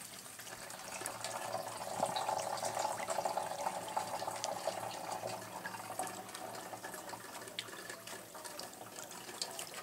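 Water running out of a corrugated hose into a plastic jerrycan, trickling and splashing inside the hollow can as it fills. The sound is a little stronger from about two to six seconds in.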